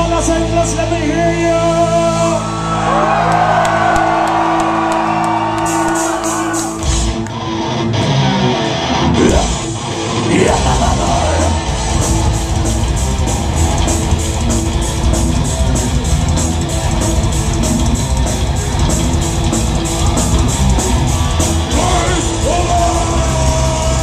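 Folk metal band playing live in a large hall, heard from the crowd: held guitar chords and sung and shouted vocals. After a short break in the low end, a fast, steady drum beat and distorted guitars come in about halfway through.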